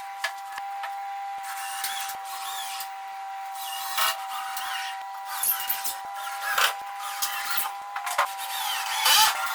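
Plywood being worked by hand while packing a crate: irregular scraping and rubbing with several sharp knocks, over a steady high-pitched hum.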